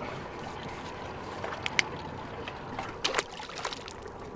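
Water slopping against a small boat's hull, with a few sharp clicks and taps around two, three and three and a half seconds in.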